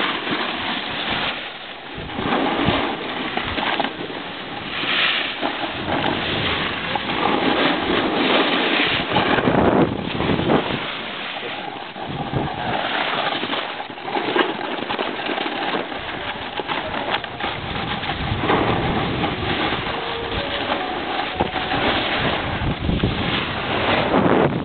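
Rushing wind buffeting the microphone, mixed with the steady hiss and scrape of sliding fast over packed snow. It swells and fades every second or two with the turns.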